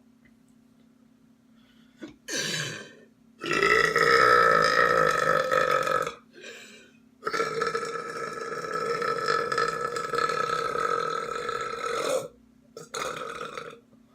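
A person belching repeatedly: a short burp about two seconds in, then two long drawn-out belches of about two and a half and five seconds, and a short burp near the end.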